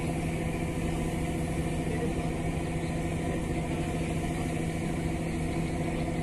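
A river boat's engine running steadily, a constant drone with an unchanging low hum.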